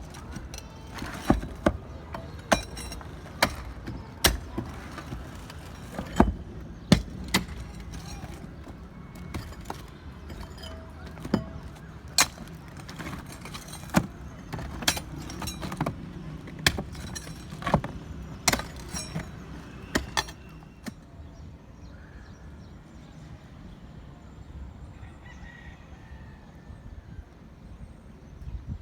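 Hammer blows on a chisel chipping out old concrete, sharp irregular knocks about one a second that stop about twenty seconds in.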